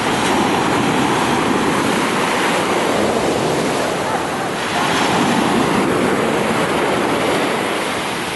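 Sea surf washing onto the beach: a steady rush that swells twice, easing off briefly about halfway through.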